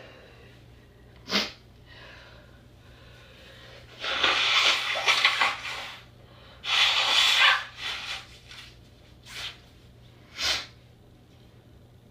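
A person's sneezing fit with noisy rushes of breath: a short sharp sneeze, then two long breathy rushes of about two and one seconds, then a few short sneezes or sniffs near the end. The sneezer is pretty sure dust set it off.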